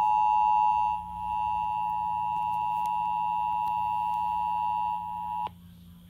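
Emergency Alert System two-tone attention signal (853 and 960 Hz together) from a radio's speaker: a steady high tone that cuts off suddenly about five and a half seconds in. It announces a severe thunderstorm warning.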